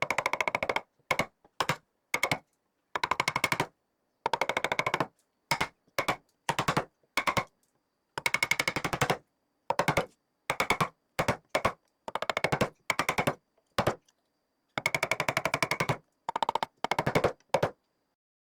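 Rapid, evenly spaced tapping of a tool on wood, many strikes a second, in short bursts separated by abrupt silent gaps, as in wood carving.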